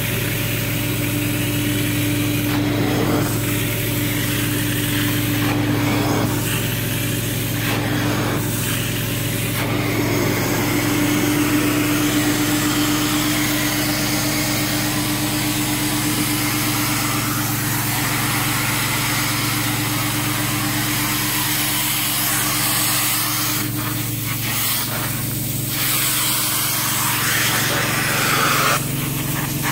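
Truck-mounted extraction cleaner working through an upholstery wand: a steady low hum under the rushing hiss of suction and spray. The hiss shifts with each stroke of the wand across the chair fabric.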